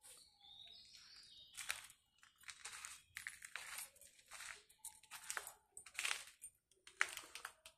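Footsteps crunching and scraping over burnt debris and ash on a fire-damaged factory floor, roughly one step a second at an unhurried walk.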